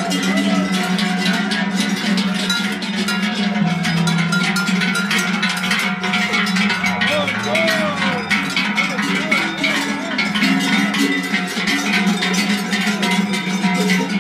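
Many large cowbells worn by a herd of cattle on the move, clanging continuously in a dense, overlapping jangle as the cows walk.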